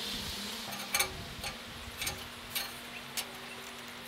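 Caulking gun clicking as its trigger is squeezed to push fireplace mortar out of the tube: five sharp clicks, about one every half second.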